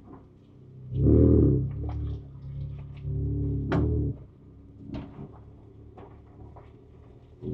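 Ford Ranger Raptor's twin-turbo V6 heard from inside the cab, surging under throttle about a second in and holding for a few seconds before easing back to a low idle. Sharp knocks and clunks of the truck working over rough trail sound throughout.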